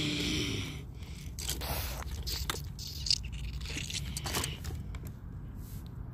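Irregular scraping and rustling handling noise, short scrapes and clicks scattered throughout, over a steady low rumble.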